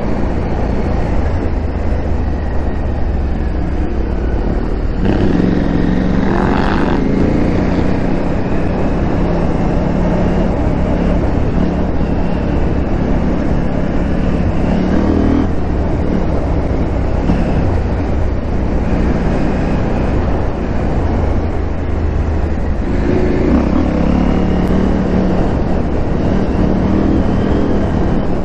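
KTM 890 Adventure R's parallel-twin engine running while riding, its note rising for a couple of seconds about five seconds in and again near the end over a steady low rumble.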